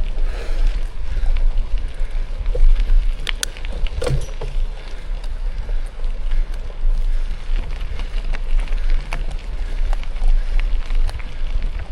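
Mountain bike riding along a forest road: wind rumbling on the microphone over tyre noise, with scattered clicks and rattles from the bike on the rough surface.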